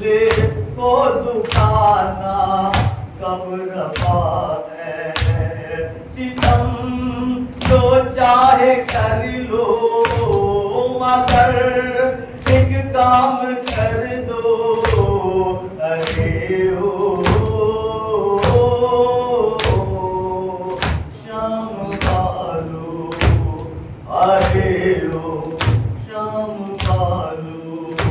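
A noha, the Shia mourning lament, sung by a man with other voices joining in the chant. Under it runs steady chest-beating (matam), open-hand strikes about one and a half a second.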